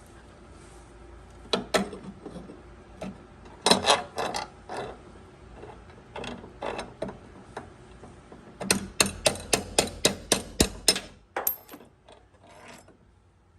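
Sharp metal-on-metal blows, scattered at first and then a quick run of about ten strikes in the second half, typical of hammering a punch to drive out a rusted door hinge pin.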